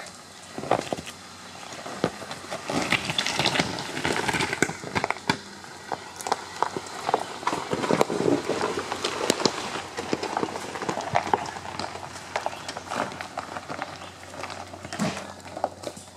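Ford Explorer's tyres crunching slowly over loose rocks and gravel, with many sharp cracks and pops of stones. It is loudest about halfway through as the SUV passes close, then fades as it drives away.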